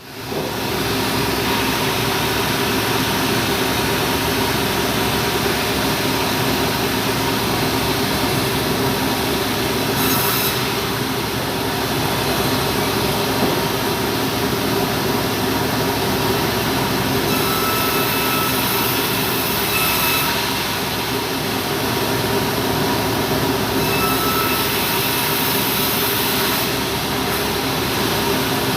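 Sawmill saw running steadily with a constant mechanical hum, with a few spells of added high hiss that come and go.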